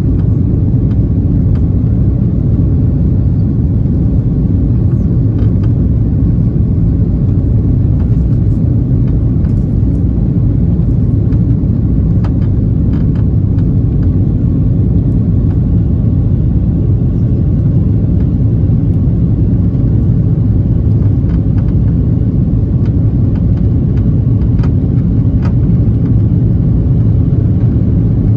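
Airliner cabin noise: a steady low rumble of jet engines and rushing air heard from inside the aircraft, with a few faint clicks.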